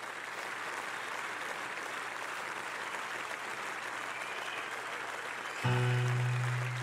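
Concert audience applauding. About five and a half seconds in, a low sustained note from the band starts up under the applause.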